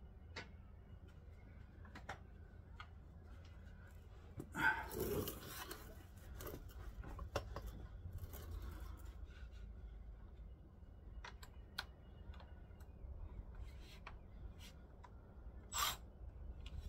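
Faint, scattered clinks and knocks of a wrench working the fuel tank strap bolts under the car, over a low steady hum, with a loud breath about five seconds in.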